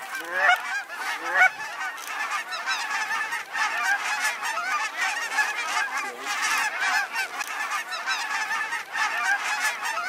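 A large flock of geese calling in flight overhead: many overlapping honks, without a break.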